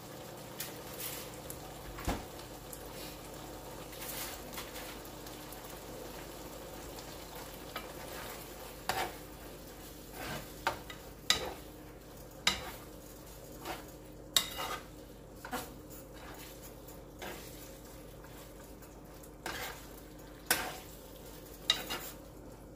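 A spoon stirring simmering taco meat in a pan: irregular sharp clinks and scrapes against the pan over a steady low sizzle.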